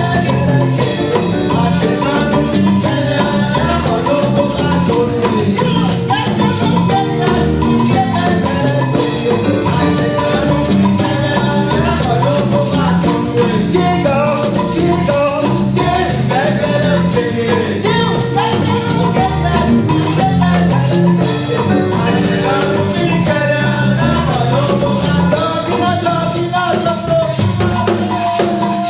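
Music playing continuously, with a steady beat of percussion strokes.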